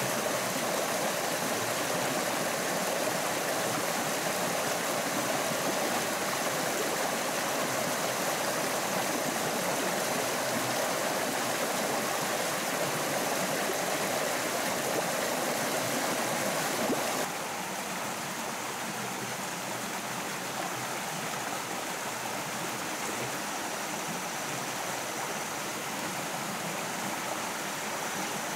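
Rocky forest stream flowing over stones: a steady wash of water noise. About two-thirds of the way through it suddenly becomes a little quieter and duller.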